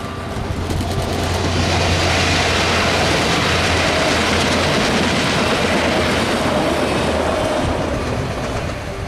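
Two coupled Alstom Coradia LINT diesel railcars passing at speed: a rush of wheel and rail noise over a low diesel hum, building over the first two seconds, holding loud, then fading near the end.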